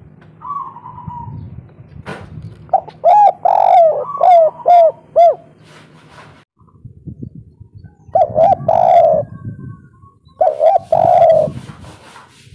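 Spotted dove cooing in the 'kuk 3' style: a run of short coos about three seconds in, then two more phrases of two quick notes followed by a longer, drawn-out coo.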